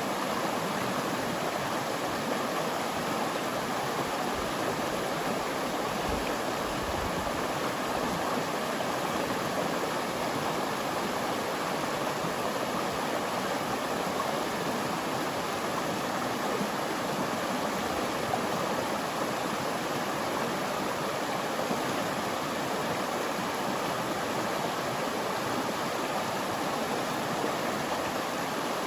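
River flowing through a forest: a steady, unbroken rush of running water.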